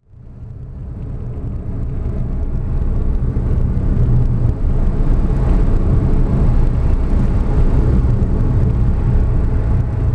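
Steady low rumble of a car driving, mostly road and engine noise, fading in over the first few seconds.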